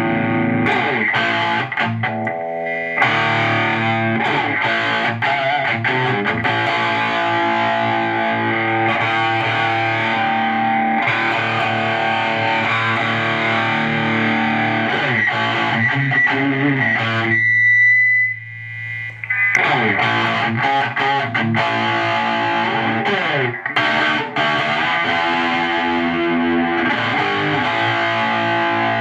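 Electric guitar played through a Tube Screamer-style overdrive pedal and tube amp, chords and riffs with a crunchy distorted tone. Just past the middle the playing drops out and a high steady whistle rings for about a second before the playing resumes.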